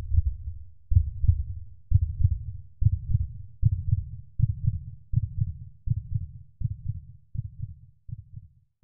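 Deep, muffled heartbeat thuds, about one a second, each with a double beat, quickening slightly and fading out near the end.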